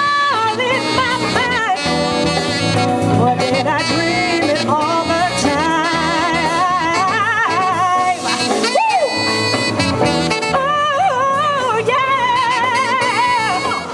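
Live jazz-soul band playing, a female lead vocalist singing long runs with heavy vibrato over electric guitar, bass, drums and keyboards.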